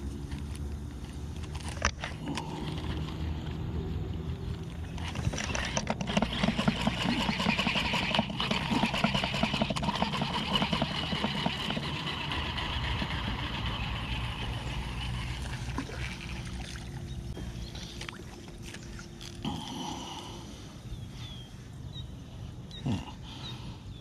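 A fishing reel being cranked in a run of fine rapid ticking for roughly ten seconds as a topwater lure is worked back. A steady low hum sits underneath at the start and again later.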